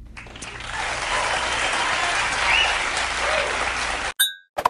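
Talk-show studio audience applauding. The applause swells over the first second, holds steady, then cuts off abruptly about four seconds in.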